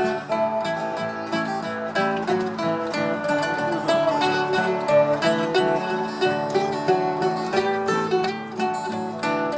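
Mandolin and acoustic guitar playing a bluegrass tune together, with quick picked notes over a steady strum.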